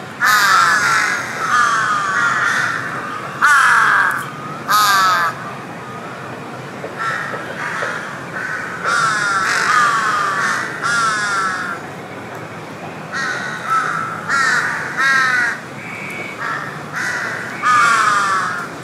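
Birds calling loudly and repeatedly, each call a quick series of falling notes, in short spells with brief gaps between them.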